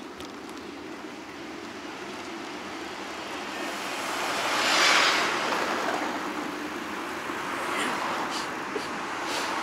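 A motor vehicle passing close by: its noise builds over a few seconds to a peak about halfway through, then fades, over a steady background road hum.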